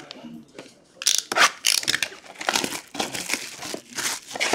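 Plastic wrapping on a Panini Select trading-card box crinkling and tearing as the box is opened, in quick irregular crackles that start about a second in after lighter rustling.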